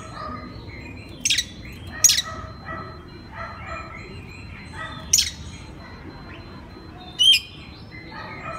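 Oriental magpie-robin singing: four loud, sharp, high notes spread over the few seconds, over a busy run of softer repeated chirping.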